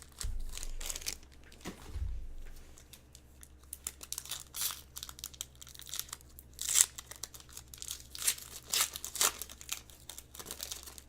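Trading card pack wrapper being torn open and crinkled, with irregular crackling that swells in several louder clusters through the middle. Two dull low thumps, one just after the start and one about two seconds in.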